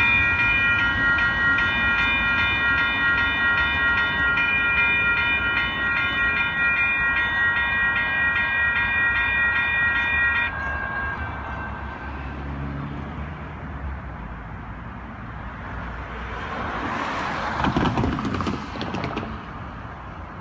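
Grade crossing warning bell ringing in rapid, evenly repeated dings over the rumble of a passing light rail train; the bell stops abruptly about ten seconds in. A low rumble follows, with a brief rush of passing-vehicle noise near the end.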